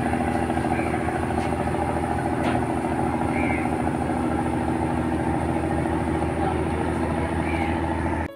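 A boat's engine running steadily, with a few faint high chirps over it.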